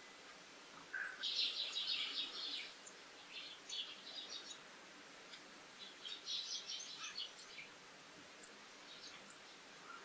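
Small songbirds calling: a quick run of chirps about a second in, another cluster around six seconds in, and scattered single chirps between.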